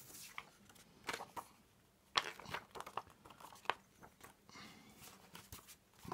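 Card inserts and paper booklets being handled: faint rustling and crinkling with a few sharp taps and clicks, the sharpest about two seconds in and again near four seconds.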